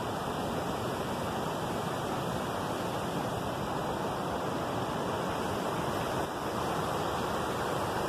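Steady rushing of flowing river water, an even hiss that never pauses.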